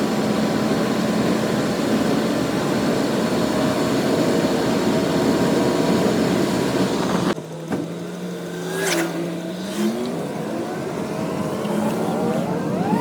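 A vehicle being driven, with steady engine and road noise. About seven seconds in, the sound drops abruptly and changes character, then builds again, with the engine's pitch rising near the end.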